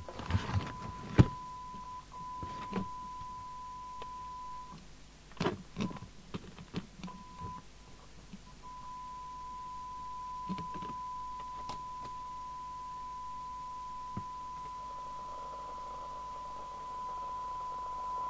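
Steady test tone from a Mustang 3000 CB radio's receiver during a receive test, the signal generator's modulation tone coming through demodulated, with a few short dropouts in the first half. Clicks and knocks of handling sound over it, and near the end a hiss rises beneath the tone.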